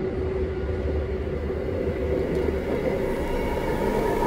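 Interior noise of a commuter train carriage on the move: a steady low rumble from the running gear with a steady whine over it.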